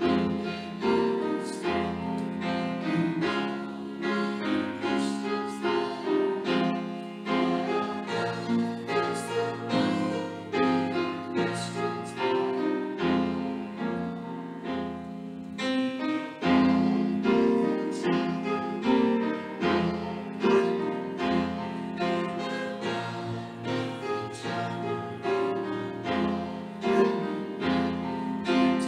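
Piano playing a hymn, with voices singing along: the congregation's closing hymn.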